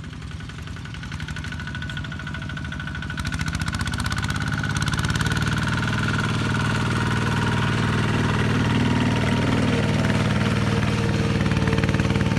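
Single-cylinder Kubota ZT-140 diesel engine of a two-wheel walking tractor chugging as it pulls a loaded trailer, growing louder from about three seconds in as the tractor comes close and passes.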